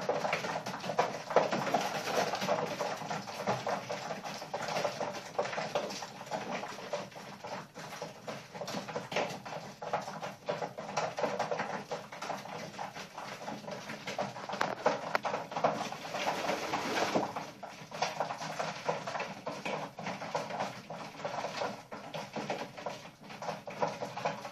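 Racing pigeons in a small loft cooing and shuffling, with many small scratchy clicks.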